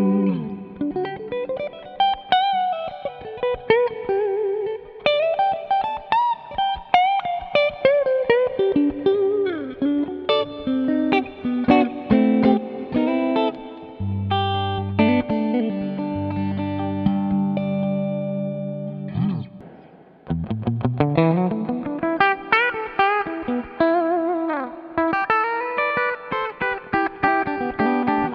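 Eko LP-P90 electric guitar, a Les Paul-style guitar with P90 single-coil pickups, played through an amp as a tone demo. It plays lead lines with string bends and slides, a run of held chords in the middle, a brief break about two-thirds through, then more quick single-note runs.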